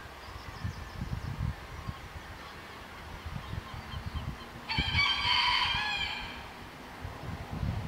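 A rooster crowing once: a single crow of about a second and a half, starting a little past halfway through.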